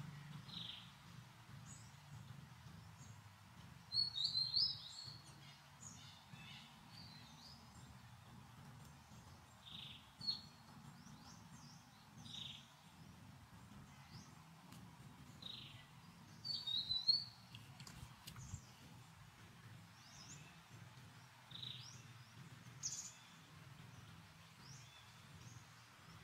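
Short, high chirping calls repeating every couple of seconds, with two louder bursts of chattering calls about four seconds in and about seventeen seconds in, over a faint low hum.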